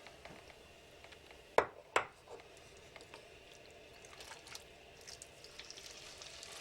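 Raw chicken chunks going into a skillet of hot oil and butter: two sharp knocks about a second and a half in, then a faint sizzle that grows toward the end.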